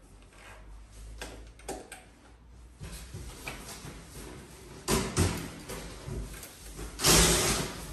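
Screwdriver clicking and knocking against fittings under a motorcycle's seat. About five seconds in there is a louder burst of noise, and near the end a longer, louder one.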